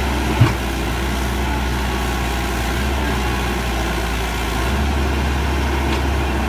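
Sumitomo SH120 A1 excavator's diesel engine running steadily, with a single sharp knock about half a second in and a change in the deep engine note a little before the end.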